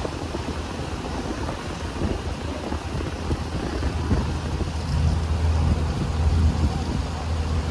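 Fishing trawler's diesel engine running with a steady low drone that grows a little louder about two-thirds of the way in.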